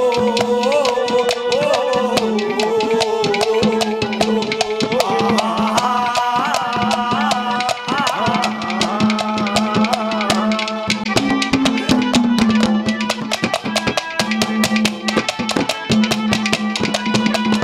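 Instrumental interlude of a live Haryanvi ragni: a hand drum playing a fast rhythm that grows denser in the second half, under a wavering melody line and a held low note.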